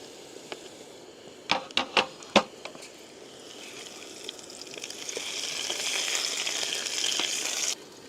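Four sharp knocks of a utensil against the frying pan, then potatoes frying in hot oil with garlic just added, the sizzle swelling louder for a few seconds and cutting off suddenly near the end.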